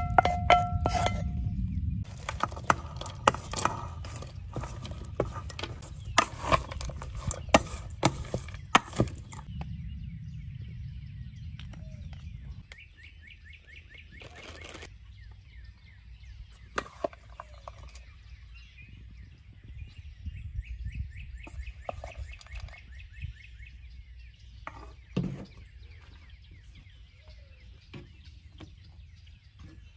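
A wooden spatula knocks and scrapes against a black skillet and a stainless steel pot as scrambled eggs are tipped out: a string of sharp clacks over a low rumble. After about thirteen seconds the clacks stop and birds chirp with a fast, buzzy trill, along with a few light taps.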